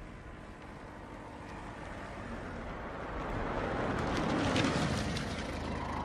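Small car driving up, its engine and tyre noise growing steadily louder, loudest about four and a half seconds in.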